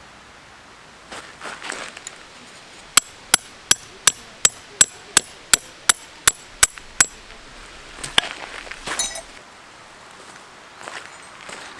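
A metal tent peg being driven into the ground with a peg hammer: about a dozen sharp, ringing strikes at roughly three a second, then a single knock a little later.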